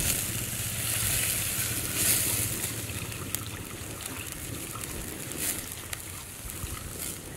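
Milk poured into a hot pan of ghee-fried garlic and green chillies, splashing and sizzling as it hits the hot fat. The hiss starts suddenly, is loudest for the first two seconds or so, then slowly dies down with a few small pops.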